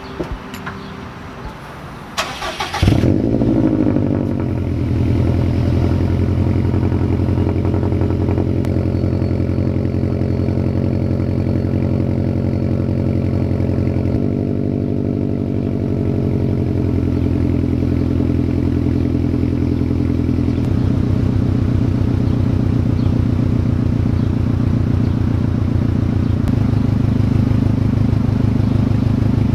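2018 Subaru WRX STI's turbocharged EJ257 flat-four cold-starting through a Tomei Expreme Ti titanium single-exit cat-back exhaust. It cranks briefly about two seconds in, catches, and settles into a loud, steady high cold idle. The idle note shifts a couple of times as it warms.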